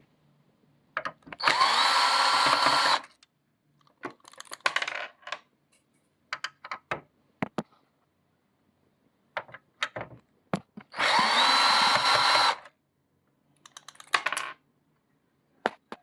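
A small electric screwdriver runs twice, each time for about a second and a half with a whine that rises and then holds steady, as screws are driven out of a VCR's video head assembly. Between the runs come light clicks and ticks of small parts and screws being handled.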